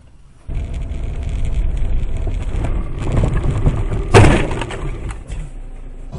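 Car driving, with a steady engine and road rumble. About four seconds in comes a sudden loud thump.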